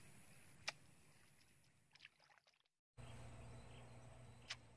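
Near silence: faint outdoor ambience, with a faint click about a second in and another near the end, and a brief dropout to full silence midway.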